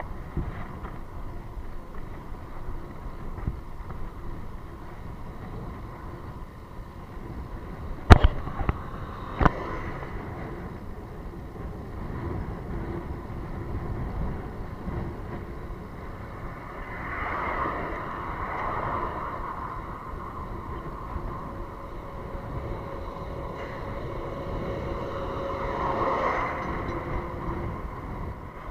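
Wind rushing over the microphone of a handlebar-mounted camera on a moving road bike, with motor vehicles going past twice in the second half. Two sharp knocks about a second apart, a third of the way in, are the loudest sounds.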